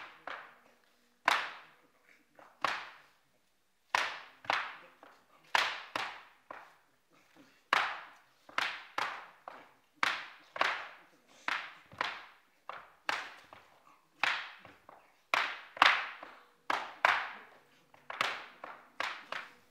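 Sharp slaps, over twenty of them at irregular spacing of about one a second, some in quick pairs, each ringing out briefly in the room.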